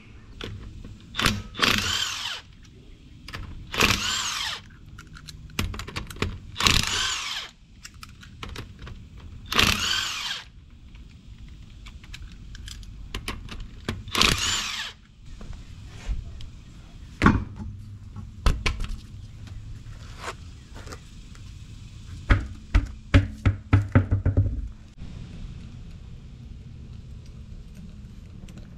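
Cordless impact wrench run in about five short bursts, each about a second long with its pitch rising and falling, loosening the lug nuts on a car wheel. Later come scattered knocks and a quick run of knocks.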